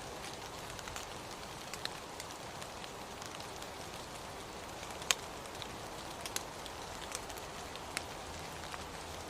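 Steady rain falling, an even hiss with scattered sharp ticks of single drops hitting hard surfaces at irregular intervals, one louder tick about halfway through.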